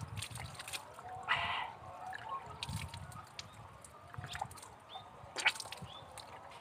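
A thin stream of well water running from a hose and splashing into cupped hands and onto the ground, with irregular sharp splashes and drips as the water is scooped up to the face and mouth. A louder splash comes about a second and a half in.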